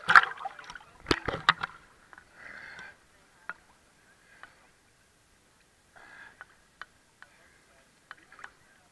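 Water sloshing and splashing against a waterproof camera at the surface, with a burst of sharp knocks and clicks in the first two seconds, then sparser ticks and small splashes.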